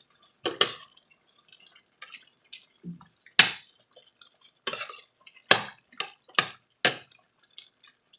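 Irregular sharp clicks and pops, about a dozen, from a pan of chopped tomatoes, red bell pepper and onions cooking down in oil.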